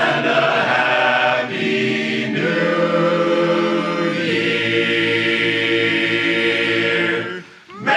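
Barbershop chorus singing a cappella, holding long chords that change a few times and end on a sustained final chord that cuts off near the end.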